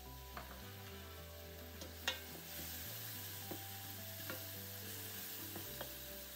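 Chopped onions sizzling in hot oil in a pot as they are stirred, with a few light knocks of the spoon against the pot, the sharpest about two seconds in. Soft background music underneath.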